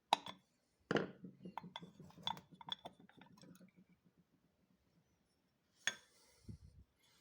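Small metal parts and hand tools clinking and tapping during motorcycle carburetor disassembly: a sharp clink at the start and another about a second in, then a run of light taps. After a pause comes one more clink with a short hiss, and a soft low thud.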